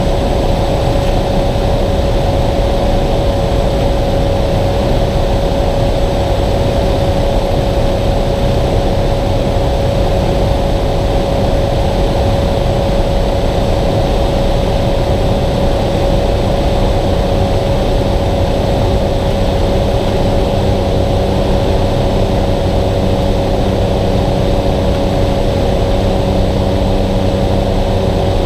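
Cessna 208 Caravan's PT6A turboprop engine and propeller heard from inside the cockpit during final approach and landing: a steady loud drone with a constant tone running through it. About two-thirds of the way through, further lower tones join in as the engine note changes.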